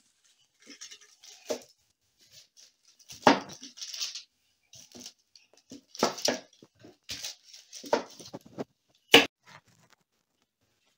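Wooden rolling pin rolling out dough on a sheet of baking paper: paper rustling and crinkling with irregular knocks of the pin.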